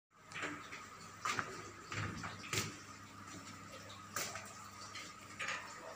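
Faint scattered knocks and clanks in a ship's engine room, over a steady high-pitched hum.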